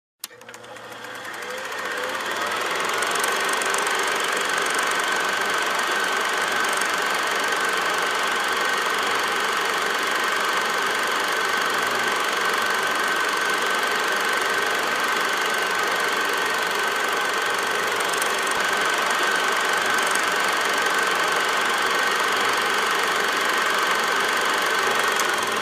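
Film projector running with a steady mechanical whirr and clatter, fading in over the first couple of seconds and fading out at the end.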